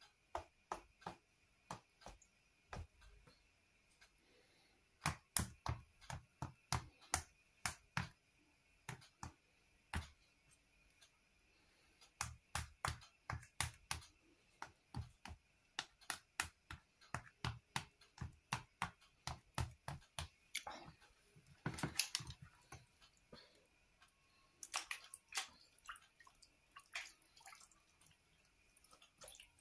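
Hands handling raw potato sausages in a black roasting pan of water: quiet, irregular sharp clicks and taps, several a second in runs, with a short splash of water about 22 seconds in.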